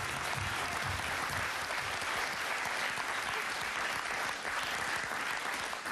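Studio audience applauding steadily, with the tail of a short music jingle fading out in the first second.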